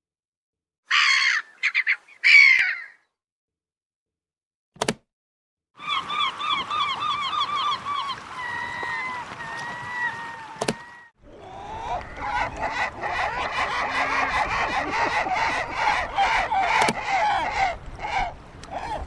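Gulls calling: a few short harsh calls, then a quick run of repeated downward-slurred calls, then a flock of gulls calling over one another against a steady rushing background.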